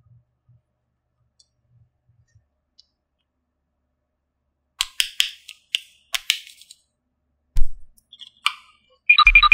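Small plastic toy pieces clicking and tapping against each other, then a dull thump. Near the end a toy's electronic sound chip starts a run of quick beeps.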